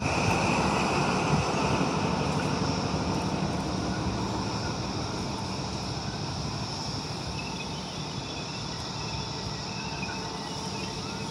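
XPT diesel passenger train running beneath and away: its engine and wheels on the rails make a continuous running noise with a faint steady whine, loudest at the start and easing as the train draws away.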